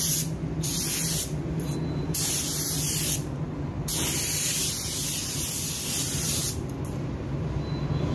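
Pneumatic paint spray gun hissing as it lays the second coat of basecoat on a plastic bumper piece. The hiss breaks off briefly several times, longest near the end, over a steady low hum.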